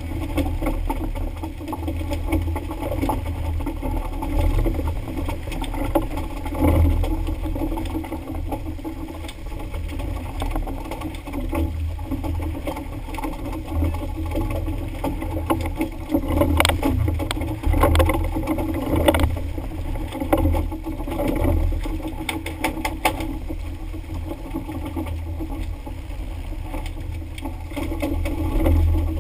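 Fishing boat at sea: engine running under a steady rumble of wind and water, with a run of sharp knocks and clatters a little past the middle.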